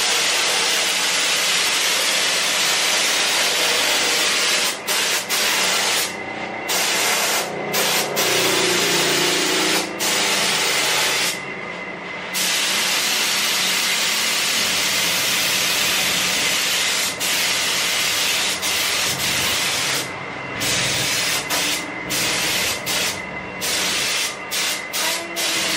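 Compressed-air spray gun spraying paint onto a motorcycle wheel: a steady, loud hiss of air and atomised paint. It breaks off briefly a number of times, with several short breaks in quick succession near the end.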